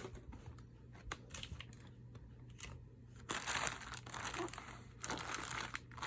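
Packaging crinkling as it is handled: a few light ticks at first, then two stretches of dense crinkling starting about three seconds in and again about five seconds in.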